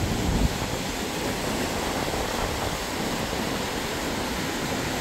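Steady rushing of river water, an even noise that holds without change.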